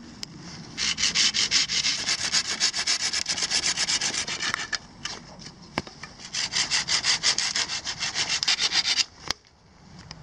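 A Bahco Laplander folding saw cutting through a thin green sapling stem with rapid back-and-forth strokes, several a second. It runs in two long spells with a short, quieter break about halfway, and stops about a second before the end.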